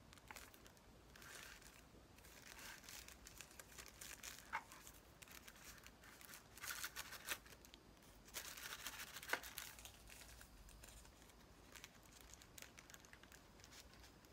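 Faint crinkling and tearing of an incense-stick box's plastic wrap and cardboard packaging as it is unwrapped and opened by hand. It comes in irregular bursts with small clicks, the loudest about nine seconds in.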